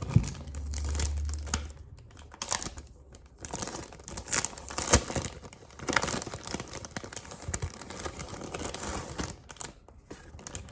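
A gift wrapper being opened and handled by hand: irregular crinkling and rustling, with a few sharp clicks, the loudest just after the start and about five seconds in.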